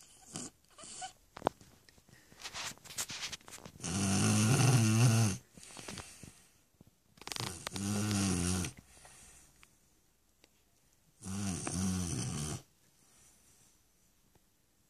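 Shar Pei dog snoring in its sleep: three long, pitched snores about three and a half seconds apart, each a little over a second long. A few faint short clicks come in the first few seconds.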